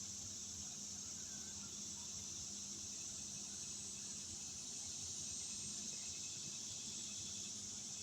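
Night insects, crickets or similar, trilling in a steady high-pitched chorus.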